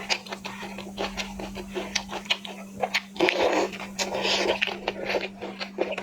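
Close-miked eating sounds of shrimp being chewed: irregular wet clicks and smacks of the mouth, with two longer wet chewing bursts a little past the middle, over a steady low hum.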